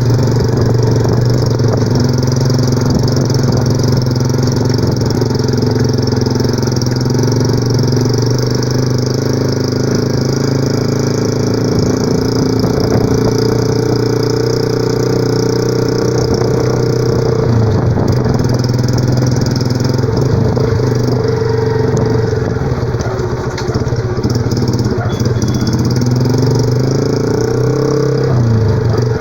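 Honda CG 125 Fan's single-cylinder four-stroke engine running steadily through a Roncar turbo aftermarket exhaust, the rattly 'bate lata' note of that pipe, with the air-filter hose removed. The engine note wavers briefly a little past halfway and again near the end.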